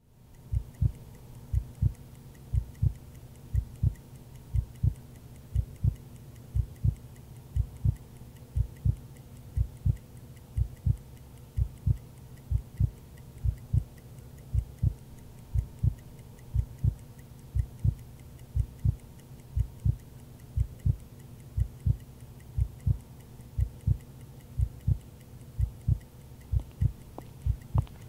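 A slow heartbeat on the film's soundtrack: low thumps in pairs, about one pair a second, over a faint steady hum.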